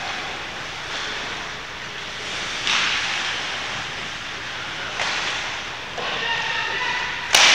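Sounds of a team game: a steady hiss with sharp cracks about three, five and six seconds in, and a louder sharp crack near the end, with brief shouts between them.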